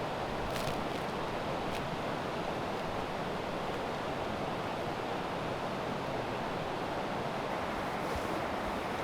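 Steady rushing noise outdoors, with a couple of faint clicks in the first two seconds.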